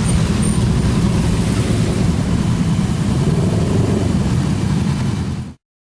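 Motorcycle running at road speed with heavy wind rush on the microphone, steady, then fading out near the end.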